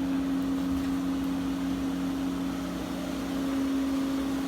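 2010 Acura RDX's 2.3-litre turbo four-cylinder engine idling, a steady even hum after an oil change.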